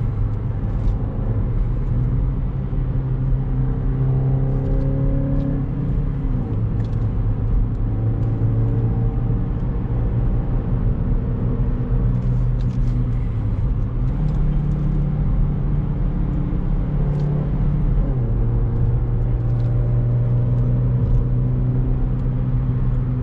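A Chevrolet Beat's 1.2-litre four-cylinder engine running under load on a climbing road, its intake sound opened up by a K&N air filter. The engine note steps in pitch a few times as the revs change.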